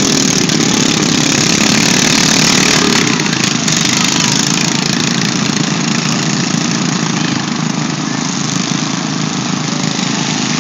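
Several lawn mower engines running at once, a loud, steady, dense engine noise.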